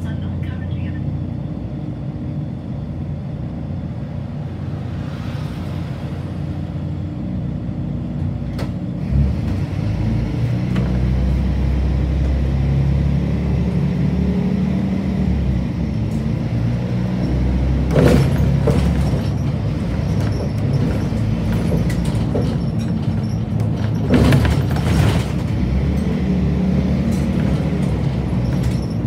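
Volvo B12RLE bus's 12-litre six-cylinder diesel heard from inside the cabin, idling steadily, then pulling away and running under load about nine seconds in. Two brief louder noises come in the second half.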